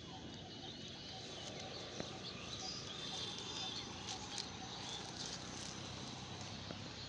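Faint outdoor ambience with scattered short bird chirps and calls, and a single sharp click about two seconds in.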